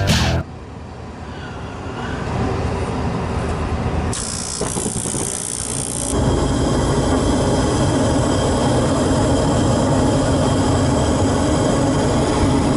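Gas-fired rooftop HVAC unit starting its heating cycle: a steady mechanical hum builds up, a high hiss runs for about two seconds, then the unit steps up to a louder steady running noise about six seconds in as ignition takes hold.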